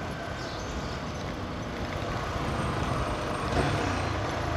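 Motorcycle riding at low speed: the engine runs under a steady rush of road and wind noise, growing a little louder about two seconds in.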